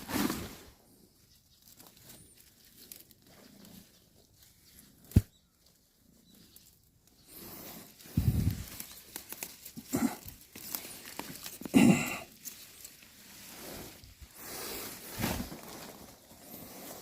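Irregular rustling of leaves and soil, with soft thuds, as radishes are pulled up by hand. A single sharp click about five seconds in is the loudest sound.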